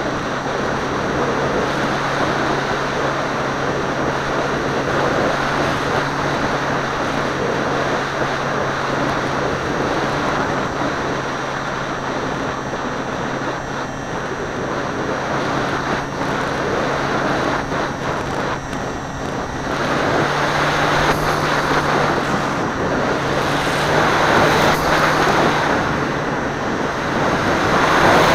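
A Seawind model seaplane in flight, heard from its onboard camera: its motor and propeller give a steady hum under loud wind rush over the microphone. The hum steps up slightly about twenty seconds in, and the noise grows louder near the end.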